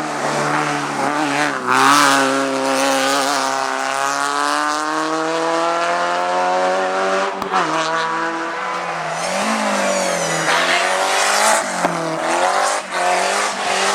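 Hillclimb race car engine running hard at high revs. Its pitch holds high and sags slowly, then drops and climbs again several times near the end as it is worked through gear changes.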